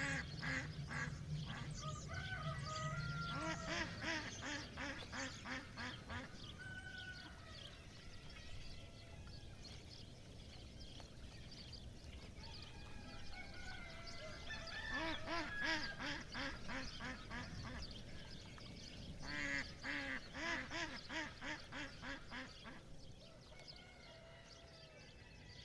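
Ducks quacking in rapid runs of calls, several quacks a second. The runs come in bursts: one at the start, another about halfway through and a third about three-quarters of the way in.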